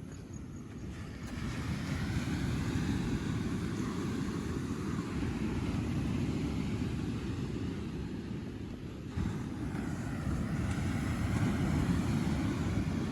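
Wind rumbling on the microphone over the hiss of ocean surf. The surf hiss switches on abruptly about a second in, drops out near nine seconds and comes back.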